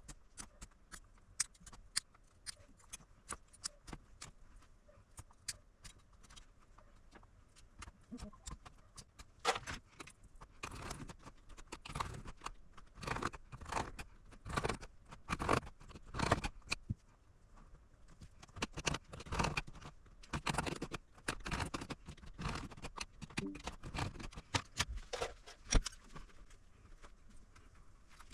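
Small clicks and snips, then rustling and scraping from hand tools and parts being handled at a workbench, with one sharper knock near the end.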